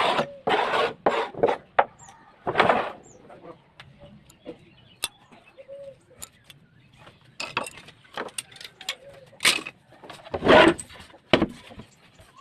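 Hand woodworking noises: irregular short scraping strokes and knocks on wood, with a few brief squeaks, the loudest stroke a little after ten seconds in.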